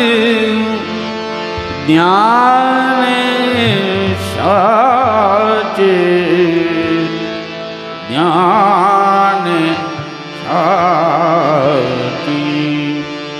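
Male vocalist singing a devotional abhang in long, held phrases with a wavering, ornamented pitch, over a steady drone accompaniment.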